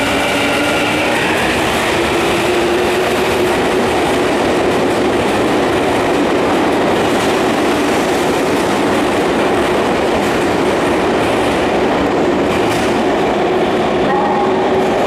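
Yokohama Minatomirai Line Y500 series electric train accelerating away past the platform: the whine of its Hitachi IGBT VVVF inverter motors rises gently in pitch over the first few seconds and then holds. It sits under loud, steady wheel and rail noise as the cars go by.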